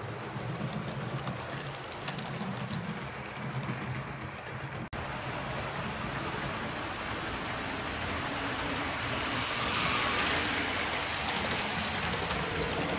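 Model train passenger cars rolling along the track: a steady whirring rattle of small wheels and motor, with a brief break about five seconds in, growing louder around ten seconds in as the cars pass close.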